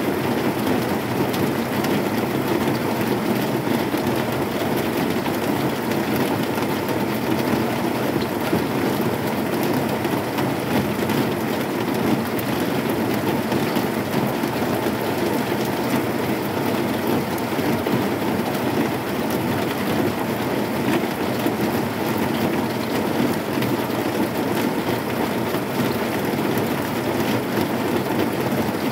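Heavy rain falling steadily on a zinc sheet roof: a dense, even patter that does not let up.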